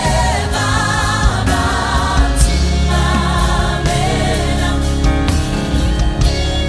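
Gospel vocal group singing in harmony through microphones, backed by a live band of keyboards, drum kit and bass guitar. The voices come in several held, wavering phrases while the band plays on underneath.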